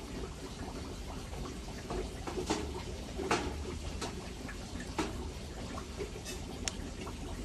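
Coco husk chips rustling and crackling as they are dropped by the handful into a plastic net pot and pressed down by the fingers, with a few short sharp clicks scattered through.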